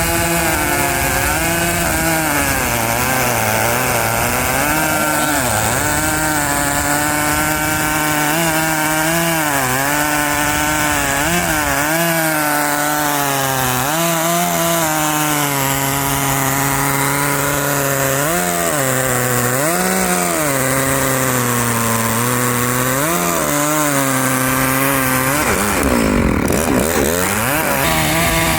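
Dolmar 7900 two-stroke chainsaw running at high revs while ripping a pine log lengthwise freehand. Its engine note sags and recovers again and again as the chain loads up in the cut, with one deep drop and climb back near the end.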